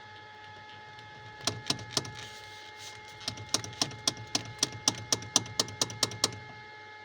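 Knocking in the steering column of a 2012 second-generation Kia Picanto: three sharp knocks, then after a pause a quick run of about four knocks a second for some three seconds. This is the characteristic steering-column knock whose cause is not yet known.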